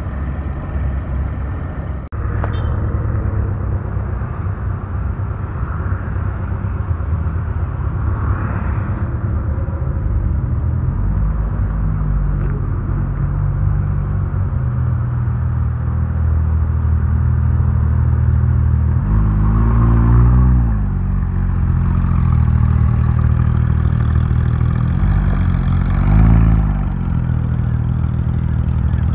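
Porsche 911 GT3 RS's naturally aspirated flat-six running at low speed in traffic, a steady low drone with two short revs, about twenty and twenty-six seconds in.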